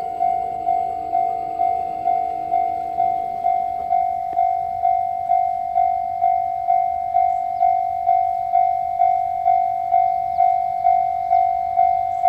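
Japanese railway level-crossing warning bell ringing steadily, about two strikes a second, each fading before the next: the crossing is active for an approaching train.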